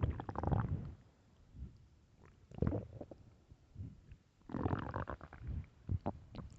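Empty human stomach growling from hunger: rumbling, gurgling bouts in about four bursts, a long one at the start, a short one after two and a half seconds, another long one about two-thirds through and a brief one near the end.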